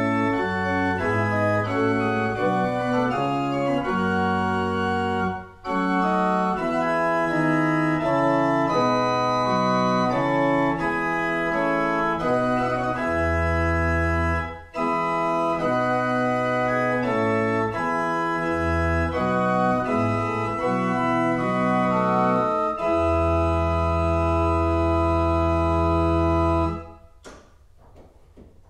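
Pipe organ from 1760 playing slow chordal music. The sound breaks off briefly twice between phrases. A long final chord is held and stops near the end, leaving the sound to die away in the room's echo.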